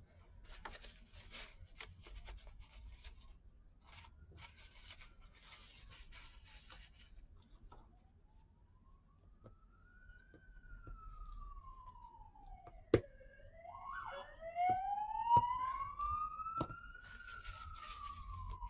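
Police car sirens going by, wailing slowly up and down twice and louder the second time, with a sharp click partway through. Crackly paper rustling comes before the sirens start.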